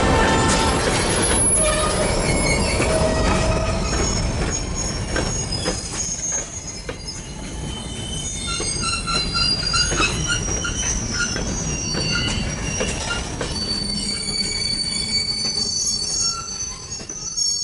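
Freight train's covered hopper cars rolling past, their steel wheels squealing in short, high, wavering tones over a steady rumble and clatter from the wheels and track.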